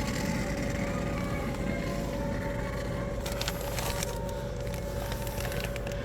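Steady machine hum with one constant tone, and a few light clicks and rustles of handling about three to four seconds in.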